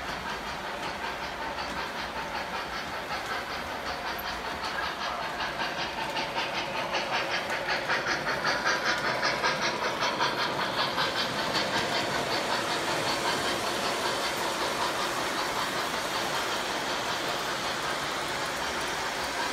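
O-gauge model trains running on three-rail track, a steady mechanical rumble with a rhythmic beat that grows loudest about halfway through as the model Norfolk and Western J611 steam locomotive and its tender pass close by, then eases off.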